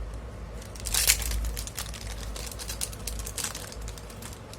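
Rustling and crinkling from hands handling small parts, a run of short irregular rustles with the loudest about a second in.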